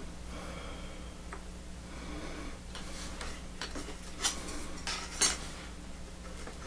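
Small metal scroll saw parts clinking and scraping against each other and the cardboard as they are handled and dry-fitted by hand. The clicks come in a cluster past the middle, the two loudest about a second apart.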